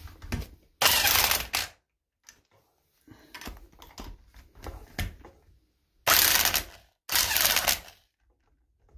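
Cordless impact wrench hammering in three loud bursts of about a second each, breaking the cylinder-head fasteners loose on a Kohler CH18 V-twin. Lighter clicks and rattles of the socket and extension come between the bursts.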